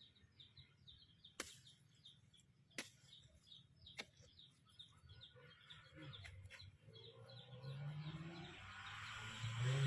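A small bird chirping over and over, about three chirps a second, with a few sharp clicks. From about six seconds in, a motor vehicle's engine rises in pitch and grows louder as it approaches.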